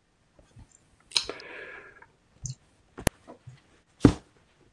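A quiet pause holding a few scattered clicks, the sharpest just after the midpoint, and a short hiss about a second in.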